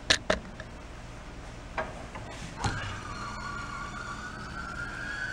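An air jack for a four-post lift (a scissor-type bridge jack) being released. A couple of sharp clicks come at the start and another partway through, then a steady whine rises slightly in pitch for about three seconds as the jack lowers on its release.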